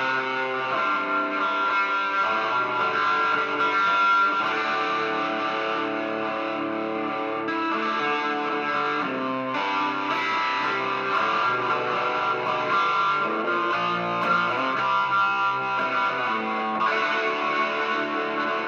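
Gibson Les Paul Studio Plus Top electric guitar playing sustained, ringing chords through a small Vox valve amp, with an MXR Phase 95 phaser pedal engaged.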